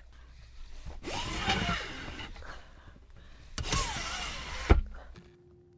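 Handling noise from hands working inside a glass reptile enclosure while a small sensor is stuck up: two stretches of scraping and rustling, each about a second long, then a sharp knock near the end.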